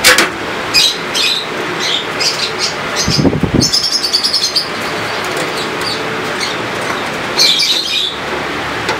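A screwdriver driving screws that fasten a hard disk into the metal drive bay of a computer case: scattered short high squeaks and clicks, with a low rattle about three seconds in.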